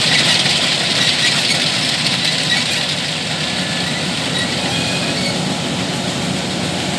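Kubota DC105X combine harvester running steadily while stationary, its diesel engine and threshing mechanism working at an even pace as straw is thrown out at the rear.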